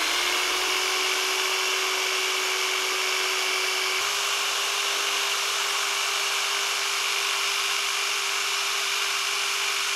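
Electric rotary polisher running steadily with its polishing pad spinning, a resin piece held against the pad to polish it. A steady motor whine over a hiss, the pitch stepping up slightly about four seconds in.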